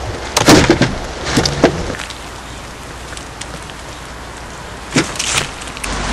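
Three short clusters of knocks and clattering, about half a second in, around a second and a half in, and about five seconds in, over a steady hiss like rain or wind.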